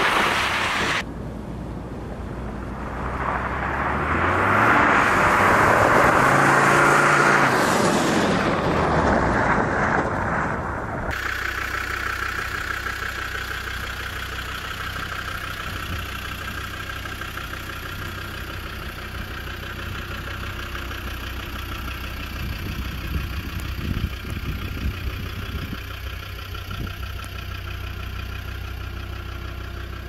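Land Rover Defender Td5 five-cylinder turbodiesel driving past, its engine note rising and then falling, loudest a few seconds in. After a sudden change it settles into a steady diesel idle.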